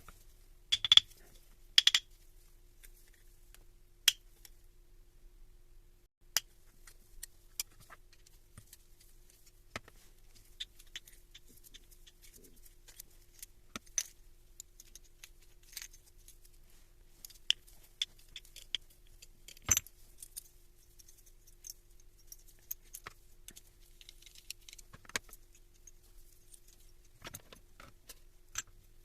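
Scattered metallic clinks and taps, like small metal parts and tools being picked up and set down on a workbench. The two loudest come close together about a second in.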